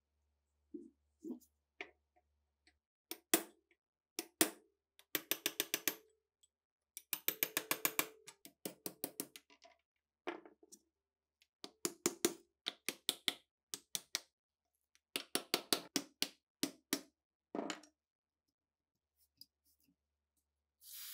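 Hand-tool work on old machine-gun parts: short bursts of quick, even strokes, several a second, broken by pauses.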